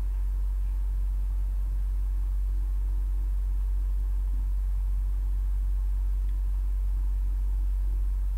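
Steady low-pitched hum with a faint hiss, unchanging throughout, with no distinct events.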